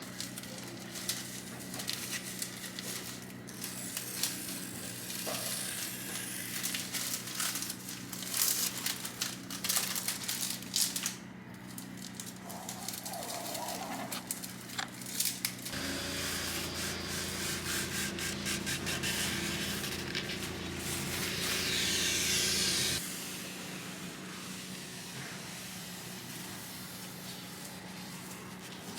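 Rustling, rubbing and crinkling of things being handled, with scattered clicks and light knocks over a steady low hum. Partway through a louder hum and hiss come in, swell, and cut off suddenly.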